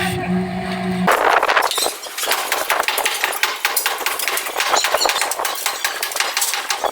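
A steady machine hum that cuts off about a second in, followed by rapid, irregular tapping and clinking of hard objects striking each other, typical of construction hand work.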